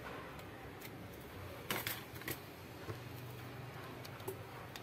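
A few small clicks and taps of a screwdriver and the phone's metal frame being picked up and handled on a silicone repair mat, the loudest a quick double click a little under two seconds in, over a steady low hum.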